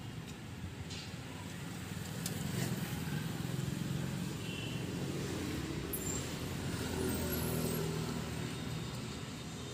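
Street traffic with a motor vehicle's engine running close by, rising for a few seconds in the middle and easing off again, over a steady road hum.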